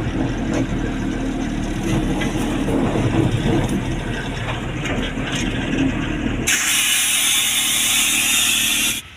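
A 1618 BS4 truck's diesel engine running, heard from inside the cab. About six and a half seconds in, the engine sound gives way to a loud steady hiss, which cuts off suddenly near the end.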